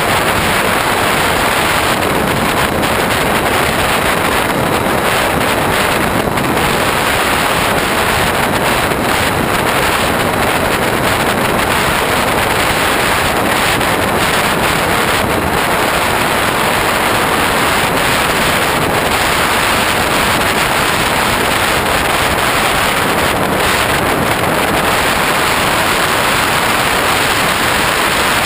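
Steady rush of airflow over a GoPro camera mounted on a Hobbyking Bixler model plane in flight: an even, loud noise that does not let up.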